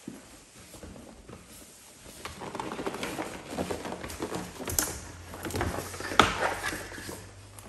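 Cardboard packaging being handled: a printed box sleeve sliding off the inner box with scraping and rustling. Two sharp knocks come about five and six seconds in, the second the loudest.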